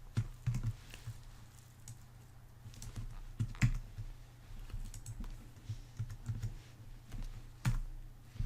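Computer keyboard typing: scattered, uneven key clicks over a low steady hum.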